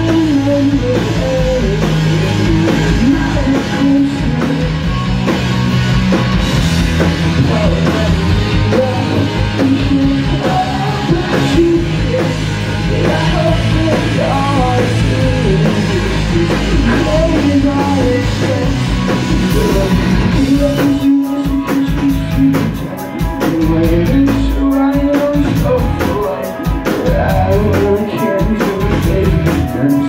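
Live rock band playing loudly, with drums, electric guitars and sung vocals. About two-thirds of the way in, the top end thins out while the drums keep a steady beat.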